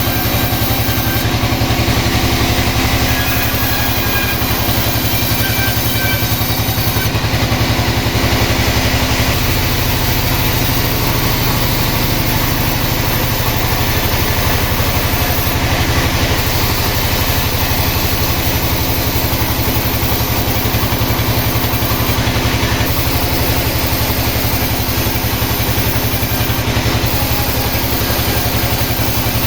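A sawmill's engine running steadily, its note shifting slightly about nine seconds in.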